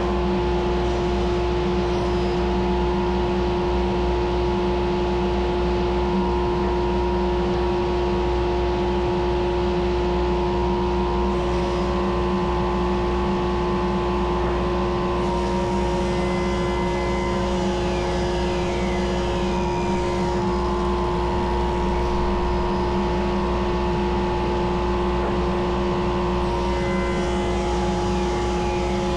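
Wood lathe running steadily with a constant motor hum while a mallet blank is turned. Higher hissing, cutting noise from the turning tool comes and goes several times.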